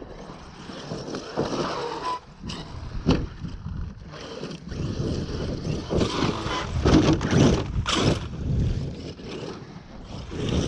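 Arrma Kraton 8S RC truck driving over rough dirt and rubble: a rough, uneven rattle and scrape with sharp knocks from impacts and landings about two and three seconds in and again near eight seconds.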